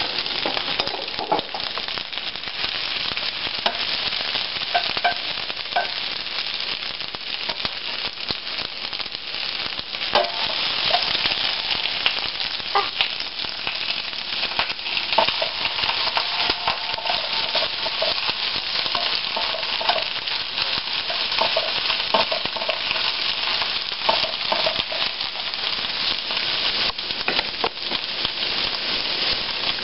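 Sliced onions sizzling in hot olive oil in a stainless steel frying pan: a steady hiss with scattered small pops.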